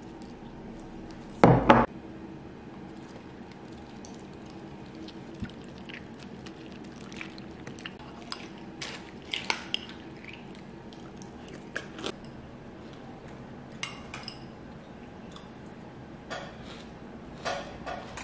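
A metal spoon clinking and scraping against a ceramic cereal bowl, in scattered short clicks, with milk poured into the bowl. The loudest sound is a sharp double knock about a second and a half in.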